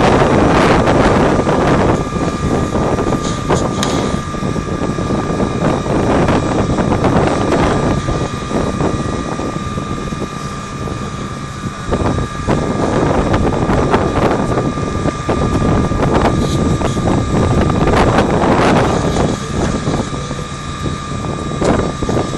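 Fire engine's engine and pump running steadily at raised revs, pumping water to the hose line, with a steady whine above the running noise.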